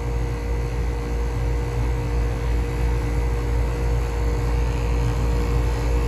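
Hayward Heat Pro pool heat pump running with its compressor and condenser fan motor forced on manually, the failed control board bypassed: a steady low drone with a faint constant tone above it.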